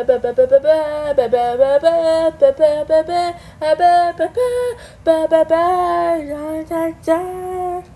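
A female voice singing a short melody of held, changing notes with little or no accompaniment: a sung channel-logo jingle.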